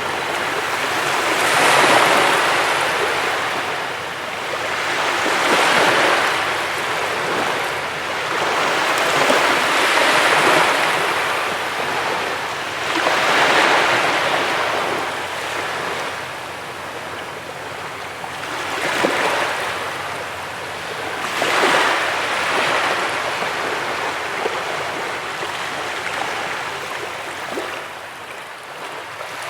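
Ocean surf breaking on a beach, a steady wash of water that swells and subsides about six times as successive waves come in.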